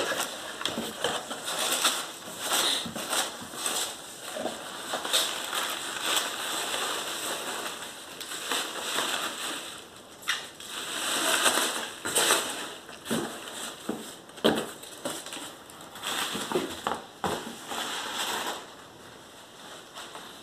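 Packing peanuts and plastic wrapping rustling and crunching as hands dig through a cardboard box, with many small crackles and clicks; it quietens near the end.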